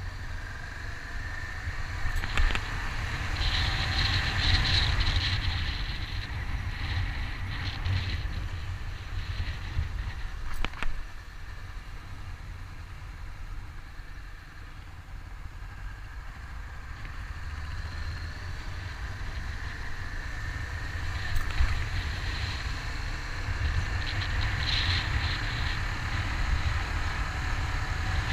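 Honda CBR500R parallel-twin motorcycle being ridden, heard from the bike's camera under a heavy wind rumble on the microphone. The engine note rises as it accelerates near the start and again about two-thirds of the way through, with a few short sharp knocks.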